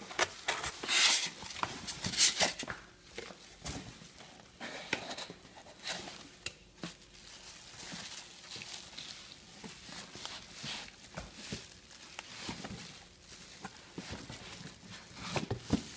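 Plastic wrap crinkling and cardboard box flaps rustling as a boxed battery is pulled out of its carton, with irregular sharp crackles and knocks, loudest about a second in and again a little after two seconds.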